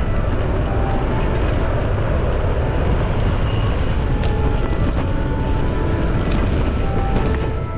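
Wind buffeting the microphone with steady low rumble while riding an e-bike along a road.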